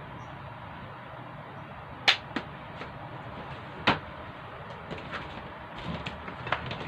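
A handful of short, sharp taps, the two loudest about two seconds and about four seconds in, over a steady low hum.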